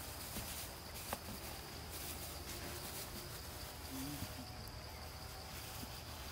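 Steady high-pitched insect chirring in forest ambience, with a couple of faint clicks in the first second and a brief faint low call about four seconds in.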